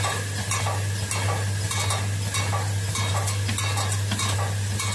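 Automatic copper terminal-lug brazing machine running: a steady hum under a continuous hiss from its gas brazing torch, with light clicks and clinks repeating at a fairly even pace, about two to three a second, as it cycles.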